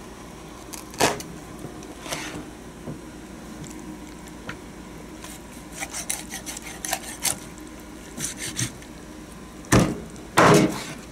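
Large kitchen knife cutting through raw chicken joints and bone onto a plastic cutting board: scattered clicks and crunches, then two heavy chops onto the board near the end.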